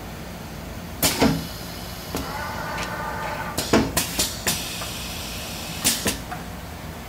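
Sock printing machine running: a steady hum, a sharp metallic clunk about a second in, then a cluster of clunks between about three and a half and six seconds. A whine sounds briefly in the middle, followed by a hiss.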